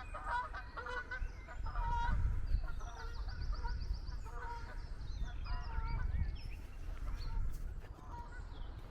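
A pair of geese honking repeatedly in short calls one after another, over a low background rumble.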